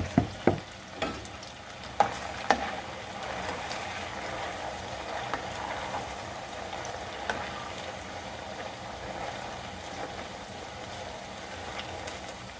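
Potatoes frying in hot oil, a steady sizzle with small crackles. A few sharp clinks of a utensil come in the first couple of seconds.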